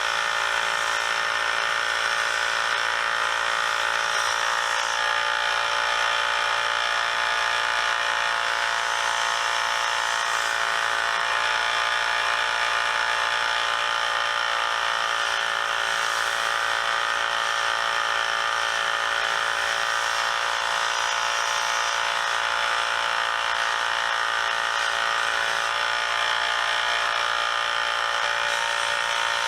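Electric motor running steadily, driving a surface-conditioning wheel as steel pliers are worked against it, a constant whine with no breaks.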